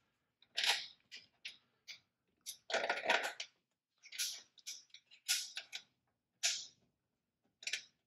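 Irregular short clinks and scrapes of hand tools and battery-cable terminals being worked loose, with one longer scrape about three seconds in.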